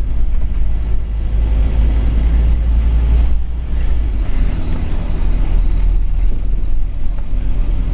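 Scania OmniCity N230UD double-decker bus under way, its five-cylinder diesel engine and drivetrain giving a steady, deep rumble heard from inside on the upper deck, with a shift in the low engine note about four seconds in.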